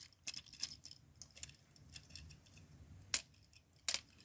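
Plastic parts of a Transformers action figure clicking and knocking as they are handled and worked into place during its transformation, with two sharper clicks near the end.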